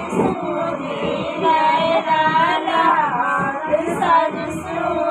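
Women's voices singing a song without instruments.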